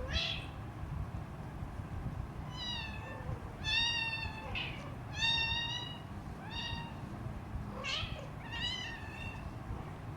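Three-week-old kitten meowing over and over, about eight short high-pitched cries in quick succession: a hungry kitten's calls.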